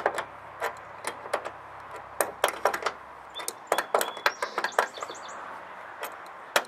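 Sharp metallic clinks and taps of an adjustable wrench being fitted to and worked on a back rack's mounting nut against a steel bracket: a dozen or so short clicks at irregular intervals, bunched in two runs in the middle.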